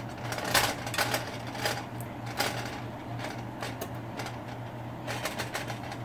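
Black slotted spatula scraping and knocking against a skillet as cubed butternut squash is stirred and turned, in irregular clicks with a quick cluster near the end.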